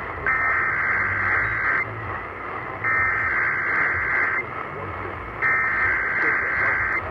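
Emergency Alert System SAME header: three identical bursts of warbling digital data tones, each about a second and a half long with a short gap between them, broadcast over the radio to mark the start of an EAS test for alert receivers.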